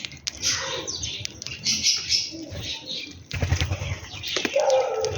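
Sparrows chirping busily, many quick overlapping chirps. A stretch of low thudding comes in about three seconds in.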